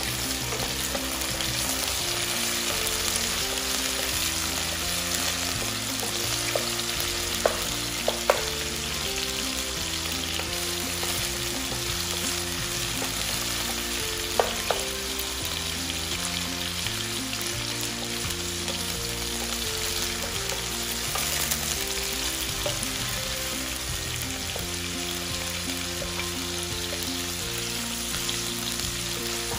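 Chicken pieces with onion and garlic sizzling steadily in hot oil in a nonstick pot, stirred with a wooden spoon. Two pairs of sharp knocks come from the spoon striking the pot, about a quarter of the way in and again about halfway.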